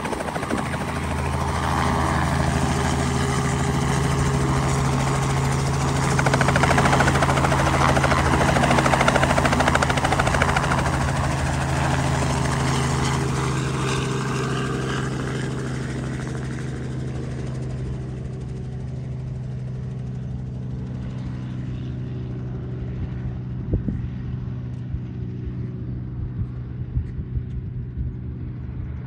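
Small two-bladed helicopter flying past and away: a steady drone of rotor and engine that swells to its loudest about a third of the way in, then fades into the distance, the hiss dying away before the low hum.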